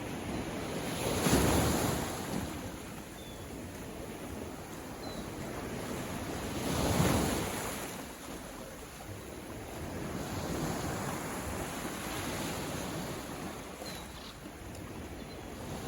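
Ocean waves breaking and washing in over a steady surf hiss, with two louder surges, one about a second in and one near the middle, each swelling and fading over a couple of seconds.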